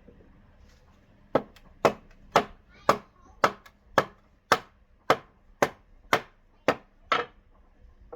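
An axe chopping into wood: about a dozen even strokes, roughly two a second.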